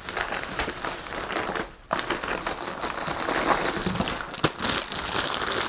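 Thin plastic carrier bag rustling and crinkling as hands rummage through it and pull out plastic sweet packets, with a brief break a little before two seconds in.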